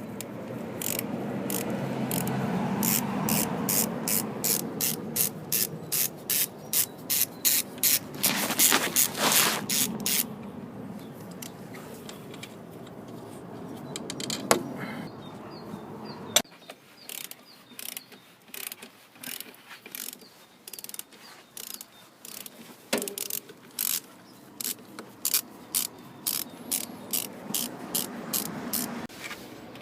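Hand ratchet wrench clicking as a bolt is turned, in runs of quick, even strokes about three a second. There is a long stretch of only occasional clicks in the middle.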